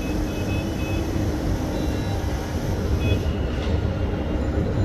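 Steady low rumble of a running vehicle, with a constant hum underneath and a few brief faint high tones.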